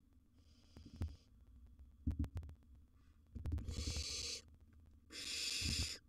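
Barn owls hissing in the nest box: three harsh, breathy hisses of about a second each, faint near the start and two loud ones in the second half. Several low knocks and thumps from the owls moving on the nest-box floor.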